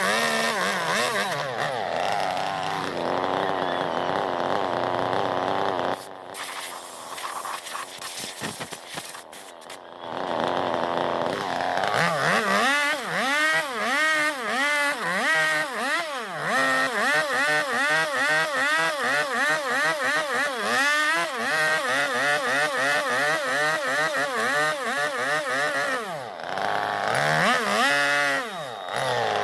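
Chainsaw carving into a zelkova log, its engine revving up and falling back again and again, about once a second, as the bar is worked into the wood. About six seconds in it drops to a quieter, lower running for a few seconds before the revving resumes.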